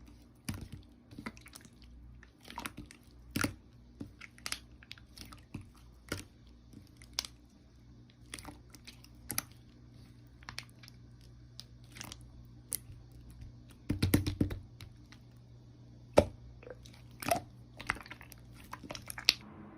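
Slime being pressed and worked by hand, giving irregular sharp clicks and crackles, with a denser run of crackling about fourteen seconds in.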